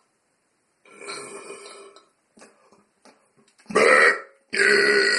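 A man's deliberately forced burps, made by swallowing air into the stomach with no drink. A quieter sound comes about a second in, then a short, very loud burp near four seconds, and a long, loud burp starting half a second later.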